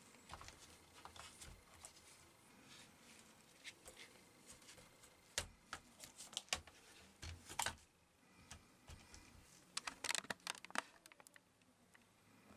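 Light plastic clicks and taps of a laptop's palmrest and case parts being handled, lifted and set down. They come in scattered clusters, the loudest about ten seconds in.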